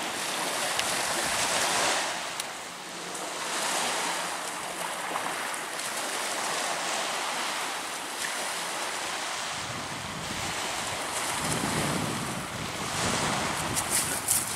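Small waves breaking and washing up a shingle beach, swelling and fading every few seconds, with wind buffeting the microphone. A few sharp clicks near the end.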